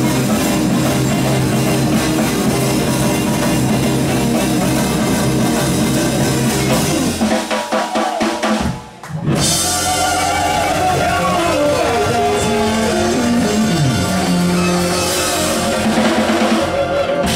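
Live band playing, with drum kit, bass, guitars, keyboard and congas. The band stops almost dead for about a second around eight to nine seconds in, then comes back in under a lead line that bends up and down in pitch.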